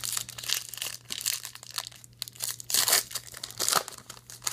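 Crimped foil wrapper of a trading card pack being pulled open at the seam and crinkled in the hands, in a run of irregular crackles that are loudest around three seconds in.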